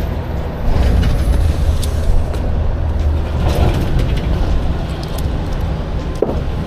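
A vehicle engine running close by: a steady low rumble that gets louder about a second in, with a few light clicks and knocks over it.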